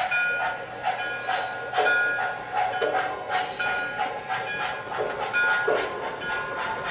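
MTH O-gauge USRA switcher steam locomotive model running under its sound system, giving a string of steam chuffs about twice a second, with wheel and track clicks.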